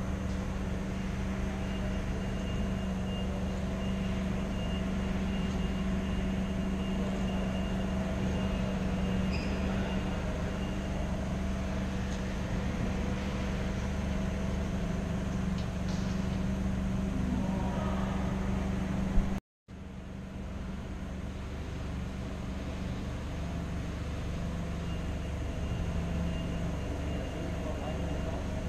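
Steady mechanical hum holding several fixed pitches, the strongest one low. It cuts out for a moment about two-thirds of the way through, then resumes.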